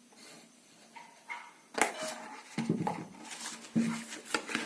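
Package seal being cut and the plastic packaging handled: sharp clicks and rustling. Two short low pitched sounds come in about two and a half seconds in and again near four seconds.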